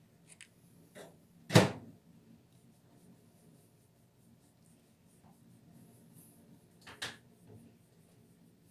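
A few short, sharp knocks and taps, the loudest about a second and a half in and another near seven seconds, with quiet room tone between them.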